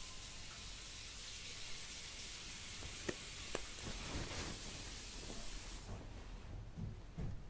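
Quiet room tone: a steady hiss with two faint clicks about three seconds in, the hiss fading away near the end.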